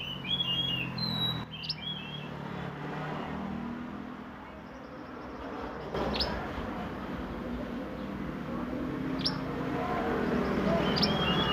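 Mantenan songbird calling in short chirping phrases and quick sharp rising notes, spaced several seconds apart, over steady background noise and a low hum.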